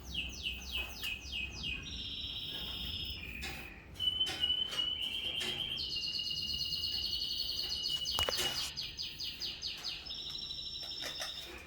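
Canary singing: a run of quick falling notes, then long rolling trills held at a steady high pitch.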